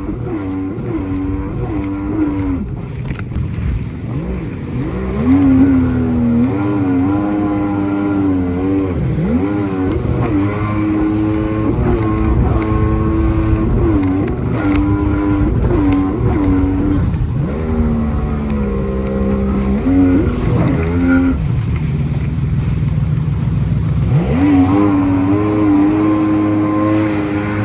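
Small motorboat's engine running at speed, its pitch dipping and climbing again several times as the revs change, over a low rush of water and wind.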